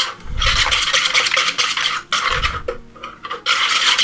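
Wire whisk beating a liquid egg, sugar and cream batter in a plastic bowl: fast scraping, sloshing strokes, broken by two brief pauses, one just after the start and a longer one between about two and three and a half seconds in.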